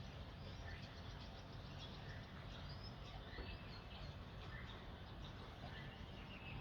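Faint bird chirps, short calls coming every second or so, over a low steady background rumble.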